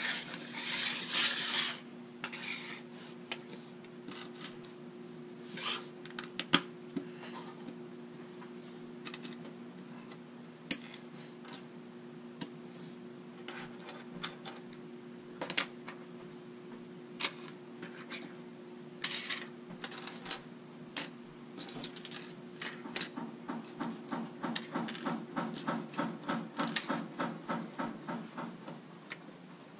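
Plastic LEGO bricks being sorted and handled on a wooden table: scattered sharp clicks and light rattles as pieces are picked up, set down and pressed together. Near the end comes a quick run of even ticks, about five a second.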